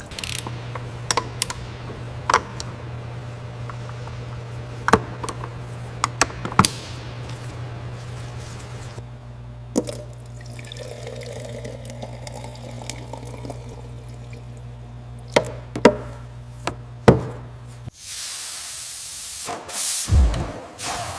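Water pouring and dripping with scattered knocks over a steady low machine hum. The hum cuts off suddenly near the end, followed by a whoosh and a few heavy thumps.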